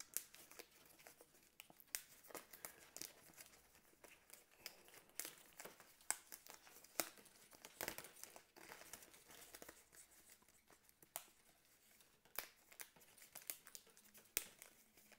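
Faint crinkling and crackling of stiff, plasticky Foldscope paper as die-cut parts are torn out along their perforations by hand, with scattered sharp snaps.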